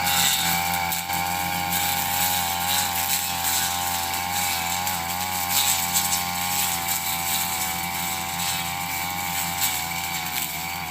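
Small engine of a motorised trimming machine running steadily while cutting corn stalks; its pitch wavers slightly up and down as the load changes.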